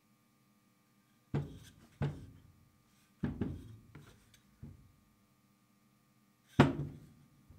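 Forged steel hammers with wooden handles being shifted, lifted and set down on a cloth-covered table: several short knocks, the loudest near the end.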